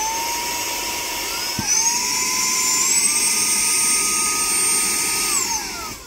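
Cordless handheld car vacuum cleaner's motor running with a high whine, stepping up in pitch as its power is raised to the turbo level, then winding down near the end as it is switched off.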